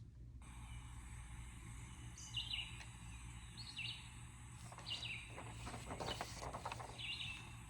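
Birds calling: short, high whistled chirps a second or more apart, faint over a steady background hiss.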